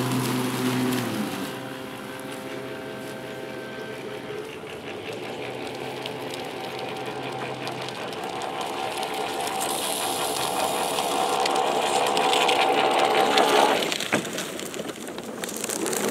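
PowerSmart 80V 26-inch cordless dual-blade electric lawn mower running, a steady motor and blade hum cutting leaves and grass. It fades as the mower moves away, grows louder as it comes back, and cuts out with a click about fourteen seconds in.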